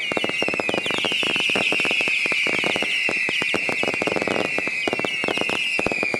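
Consumer fireworks going off: a dense run of pops and crackles under high whistles, many short ones falling in pitch over one long whistle that slowly drops.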